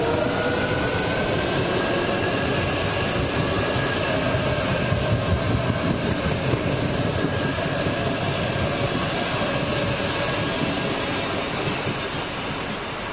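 Shanghai Metro electric train running past at close range: steady wheel-on-rail noise with whining tones that slide in pitch. The sound drops off near the end as the last car goes by.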